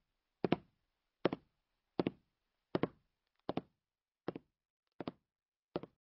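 Footsteps of hard-soled leather shoes on stairs: eight even steps, each a quick heel-and-toe double tap, growing fainter toward the end.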